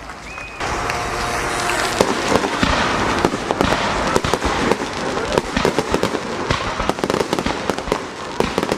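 Aerial fireworks bursting in rapid succession: a dense crackle packed with many sharp bangs, starting about half a second in.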